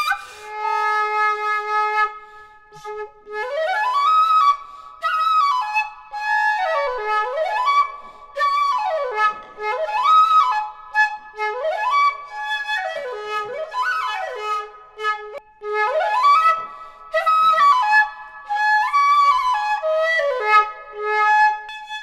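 Two very short 1.1-sun bamboo shakuhachi played together. Held notes alternate with repeated sliding sweeps of pitch up and down, about one every two seconds.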